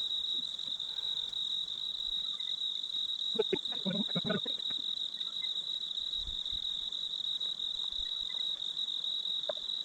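Crickets chirping: one steady, unbroken high-pitched trill, with a brief faint sound a little past the middle.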